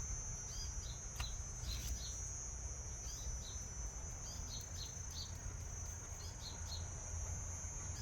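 A steady high-pitched insect drone, with short bird chirps in small clusters every second or so and a couple of faint clicks, over a low rumble.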